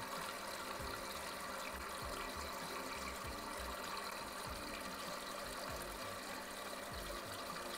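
Fluidmaster toilet fill valve running steadily, a hiss of water flowing into the cistern as it tops up to a water level that has just been set higher.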